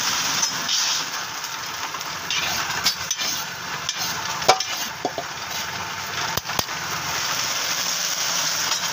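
Steady hiss and rattle of rice grains being roasted for puffed rice (muri), turned in the pan by a motor-driven stirring rod, with a few sharp metallic clicks from the utensils partway through.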